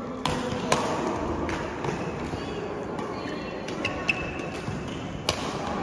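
Badminton rally: rackets striking the shuttlecock with sharp cracks, several times, two close together near the start and another near the end, over a steady background hubbub.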